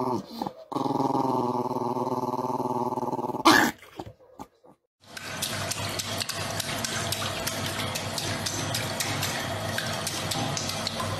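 A small dog growling steadily, ending in a sharp noise about three and a half seconds in. After a short pause, water rushes and splashes in a flushing toilet bowl, with many small splashes, until just after the end.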